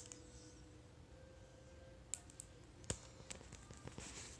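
A few faint, sharp clicks and taps of hands working at the plastic wrapping of a toy surprise ball, over quiet room tone.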